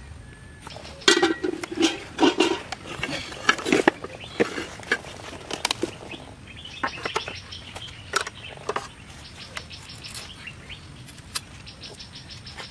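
Cooking pots, a metal bowl and utensils clattering and knocking together as they are handled in a woven basket. A quick run of sharp knocks and clinks, then lighter, sparser clicks.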